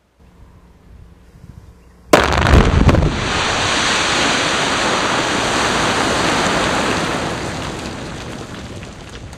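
Quarry bench blast: about two seconds in, a sudden loud blast with a quick run of several heavy thumps as the blastholes fire in sequence. The rumbling rush of the rock face collapsing follows and slowly dies away over the last few seconds.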